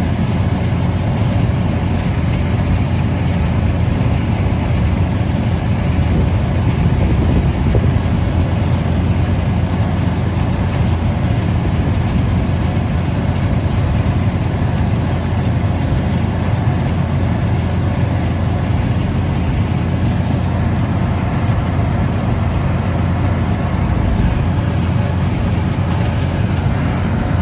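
Tractor engine running steadily, driving a Deutz-Fahr 400 baler baling hay, with a low, even drone throughout.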